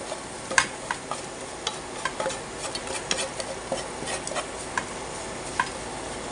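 Wooden chopsticks scraping and tapping against a tilted nonstick frying pan with irregular clicks as fried garlic is pushed out into a metal strainer. Under them runs a steady sizzling hiss of the hot frying oil.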